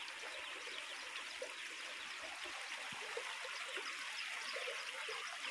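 Hot oil sizzling steadily as a puri deep-fries in a kadai: an even hiss with fine crackling and small scattered pops.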